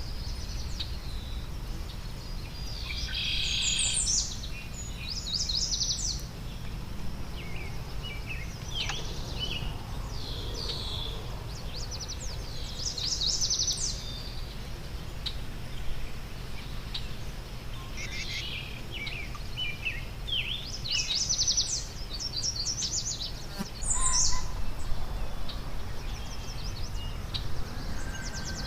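Wild songbirds singing and calling, with a quick trilled phrase repeated every few seconds among scattered chirps, over a steady low background rumble.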